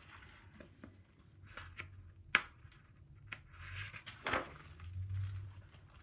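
Paper rustling and soft clicks as a picture book's pages are handled and turned, with one sharp click a little over two seconds in.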